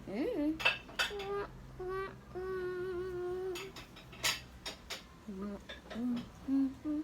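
A child humming a short tune, with a long held note in the middle, while utensils clink against dishes several times.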